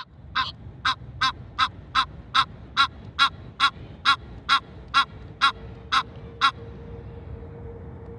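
Female Egyptian goose honking loudly, a rapid run of about fifteen short calls at roughly two a second that stops about six and a half seconds in.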